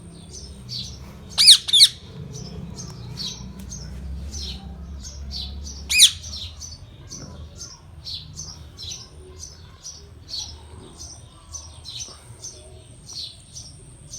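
Indian ringneck (rose-ringed) parakeet chirping in a steady run of short high chirps, about three a second, with two loud squawks about a second and a half in and another around six seconds in.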